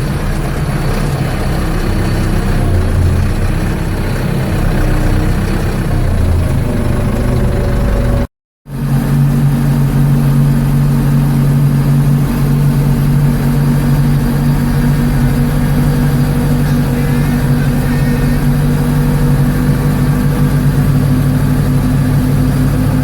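Ford 755 B backhoe's diesel engine running, its pitch shifting over the first several seconds as it works. About eight seconds in, the sound cuts out for a moment, then the engine runs steady.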